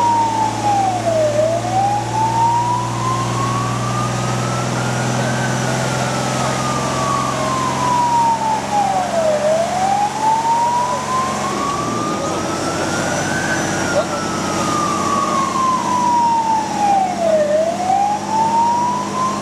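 Fire engine siren on a slow wail, gliding up and down in a cycle of about eight seconds, each rise and fall taking about four seconds; the fire engine is a Magirus-Deutz 192D11 on an emergency run, heard from inside its cab. Beneath it runs the truck's diesel engine, whose low hum drops away about twelve seconds in.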